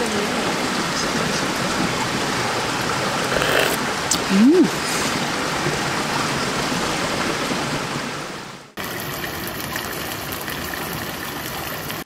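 Steady rush of a mountain valley stream. About four seconds in, a person gives a short hummed "mmm" that rises and falls in pitch. The water noise cuts out for an instant just before nine seconds and comes back slightly changed.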